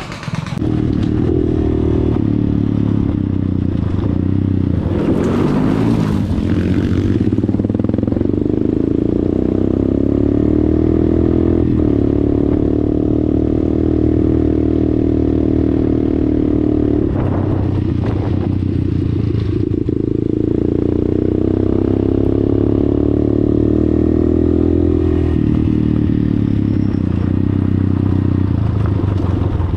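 Dirt bike engine running under way on a gravel track, its pitch climbing and then dropping several times as it revs up and changes gear. Gravel clatters under the tyres.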